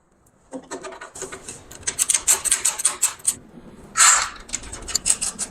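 Handling noise from fitting a door lock's cylinder: a quick run of small clicks and taps, with a short scraping rub about four seconds in.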